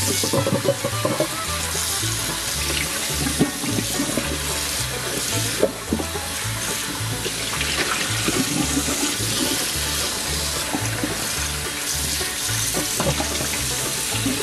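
Tap water running into a stainless steel bowl of capelin and splashing over into a steel sink as the fish are rinsed by hand, steady throughout. Background music with a repeating bass line plays underneath.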